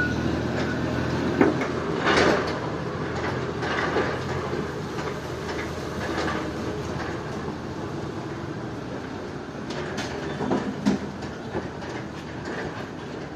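Heavy machinery running steadily with a low hum, with scattered metallic clanks and knocks, loudest about two seconds in and again around ten to eleven seconds.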